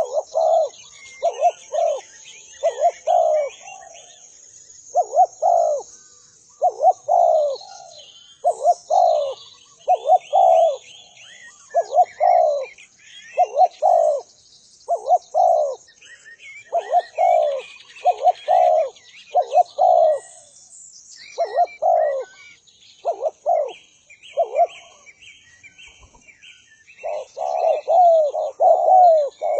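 Island collared dove (derkuku) cooing over and over in short low notes, grouped in its 'tuku-tuku' rhythm, with a brief pause shortly before the end. Small birds chirp faintly at a higher pitch behind it.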